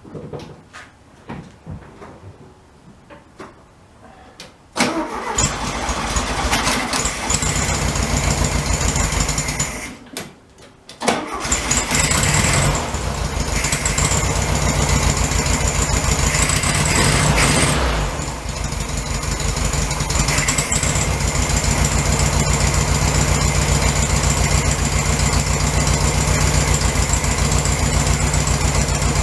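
1967 VW Beetle's air-cooled 1500 flat-four engine, freshly reinstalled, started on the key for the first time about five seconds in, after a few faint clicks. It goes quiet briefly about ten seconds in and runs again a second later, at an uneven speed for several seconds, then settles into a steady idle.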